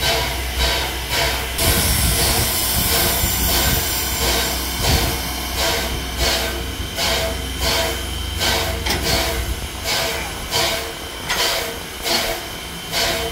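Strasburg Rail Road's 2-6-0 steam locomotive No. 89 hissing steam, with a loud burst of hiss from about two seconds in lasting a few seconds. A regular working beat, about two strokes a second, runs under it.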